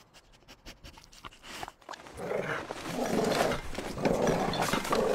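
Cartoon dog sniffing in quick short puffs, then growling in several rough stretches about two seconds in as it grips and tugs a picnic blanket in its teeth.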